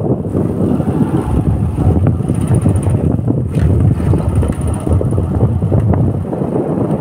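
Wind buffeting the microphone of a moving camera: a loud, steady low rumble.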